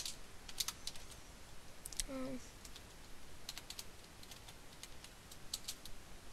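Computer keyboard typing: irregular runs of keystroke clicks, with a short wavering hum about two seconds in.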